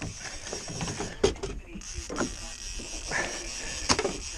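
Scuffing and handling noise with a few sharp knocks, from a fishing line being hauled in hand over hand with gloved hands over the side of a small boat, a big skate on the other end.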